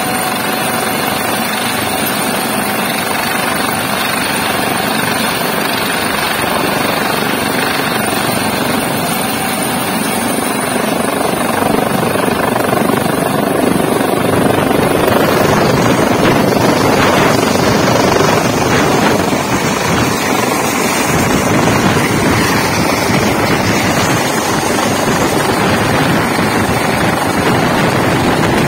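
Eurocopter AS365 Dauphin twin-turbine helicopter running on the deck with its main rotor turning, its thin turbine whine under the rotor noise. About halfway through it grows louder and fuller as the helicopter powers up and lifts off into a hover.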